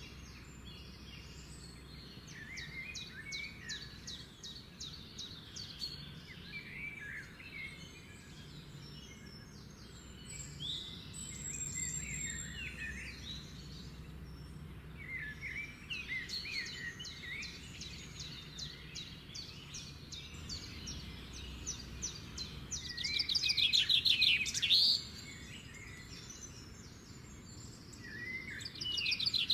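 Small pet birds chirping and twittering steadily, with a loud burst of rapid chirping about three-quarters of the way through and another near the end.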